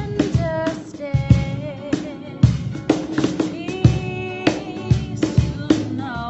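Gospel song: a sung vocal line over guitar and a steady drum beat.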